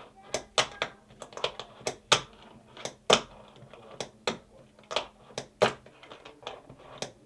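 Irregular sharp clicks and taps of small hard objects being handled, roughly one or two a second.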